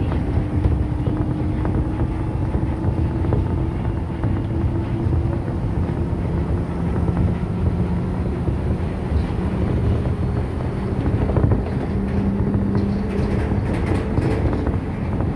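Osaka Metro New Tram, a rubber-tyred automated people mover, running along its guideway, heard inside the car: a steady rumble with a faint motor hum that shifts lower in pitch about halfway through.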